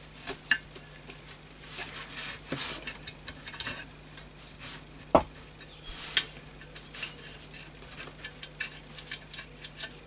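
Metal parts of a Setra pump-up air rifle's bolt action being handled and fitted together onto the receiver tube. The sound is irregular light clicks and clinks, with a sharper knock about half a second in and another about five seconds in.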